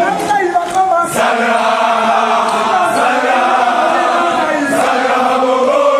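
A group of young men chanting and singing together, many voices in unison.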